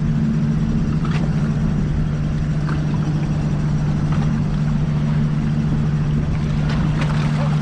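Boat engine running at a steady idle: an even low drone with a constant hum, unchanging throughout.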